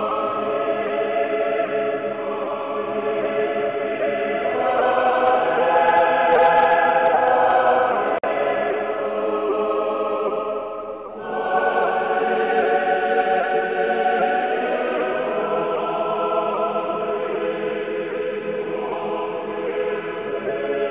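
Choir singing slow Orthodox church chant in several voices, long held notes, swelling about six seconds in and briefly pausing about eleven seconds in.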